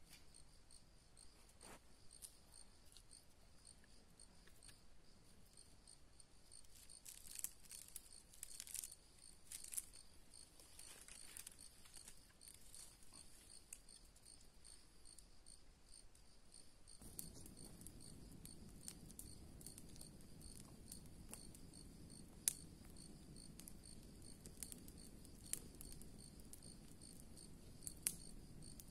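Insects trilling steadily and faintly, with scattered snaps of dry sticks being handled. From about midway a freshly lit fire of dry sticks burns with a low rush and sharp crackles.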